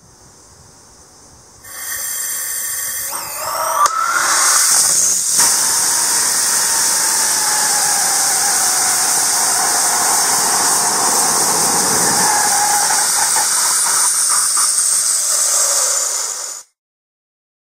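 RUD-14 small rocket engine burning gaseous oxygen and ethanol in a static test firing. A hiss builds over the first few seconds with a brief rising whistle, then the engine burns with a loud steady hiss for about twelve seconds and cuts off abruptly.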